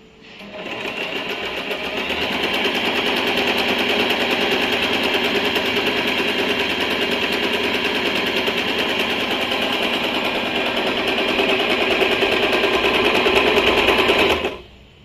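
Usha Janome Allure DLX electric sewing machine stitching a close zigzag on cloth, with the needle going up and down in a rapid, steady rhythm. It picks up speed over the first couple of seconds and stops abruptly near the end.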